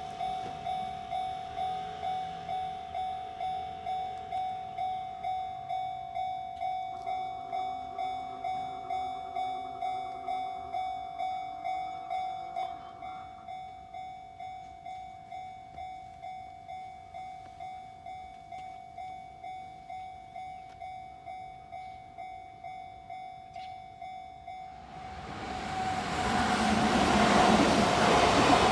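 Level crossing's electronic warning bell ringing steadily at about two strikes a second, dropping in volume about halfway through. About 25 seconds in, a Kintetsu train approaches and rushes through the crossing, its noise swelling over the bell.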